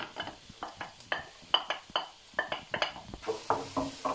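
Quick irregular taps and clatter as chopped onion is knocked off a plastic plate into an electric paella pan. About three seconds in, a hiss of frying comes up as the onion lands in the hot oil and a wooden spoon starts stirring it.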